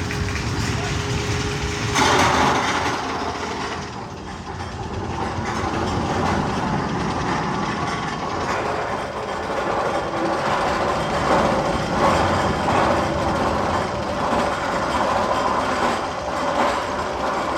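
Magnum XL 200 roller coaster train running on its track through the tunnel. A sudden louder sound comes in about two seconds in, and a steady tone holds through the second half.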